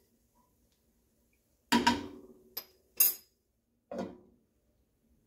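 A spoon knocking against a nonstick frying pan while vegetables are stirred, then a glass pan lid clinking as it is set back on the pan. After a quiet start there are four or five sharp clinks, the first ones loudest.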